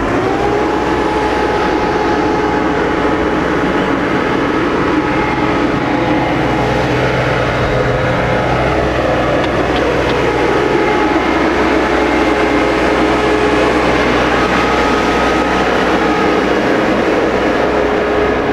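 Sherp N 1200's 1.8-litre three-cylinder Doosan diesel engine running steadily under load as the amphibious UTV drives close by and climbs away, a steady drone with a high whine held over it.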